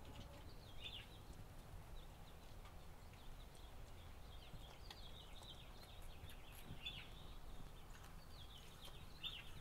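Faint, high animal chirps come in short clusters every second or two over a low, steady rumble.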